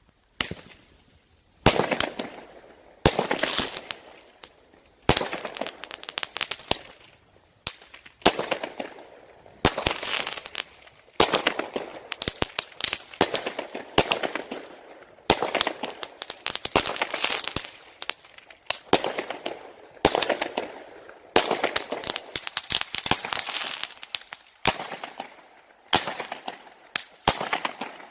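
A 36-shot, 0.6-inch-calibre consumer fireworks cake (battery) firing shot after shot, about one a second. Each sharp launch bang is followed by a crackling burst that dies away.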